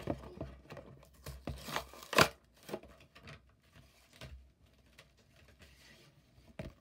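Clear plastic and card packaging of a Matchbox toy car being pulled open by hand: irregular crackling, crinkling and tearing, loudest about two seconds in, then thinning out to occasional crackles.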